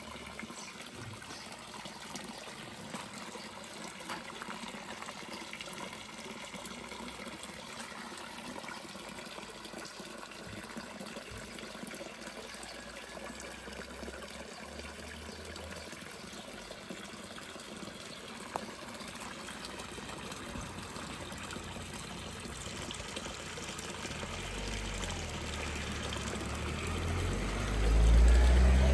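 Small pond fountain jet splashing steadily onto the water surface, a continuous trickling splash that grows louder near the end. A low rumble swells over it in the last couple of seconds.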